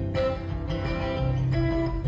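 Acoustic guitar in open CGDGBE tuning playing an instrumental fill between sung lines, with plucked notes over a sustained bass.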